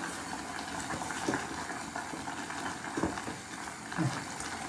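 A pot on the stove bubbling at the boil, a steady hiss, with a few soft knocks.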